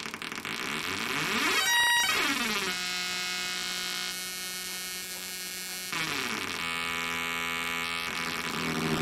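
Synthrotek Atari Punk Console kit synthesizer giving out a harsh electronic buzz. Its pitch sweeps about a second in, holds one steady tone for a few seconds, then jumps to another, as its knobs are turned.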